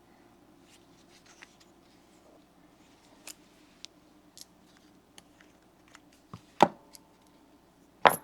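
Small tool pieces being handled: scattered light clicks, then two sharp knocks about a second and a half apart near the end, the second leaving a brief metallic ring.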